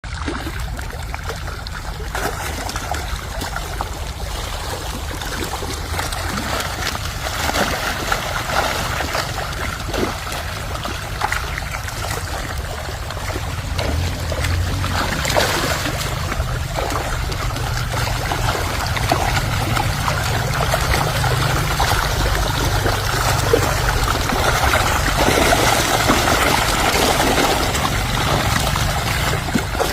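Water splashing and trickling over a steady low rumble, with occasional sharper splashes.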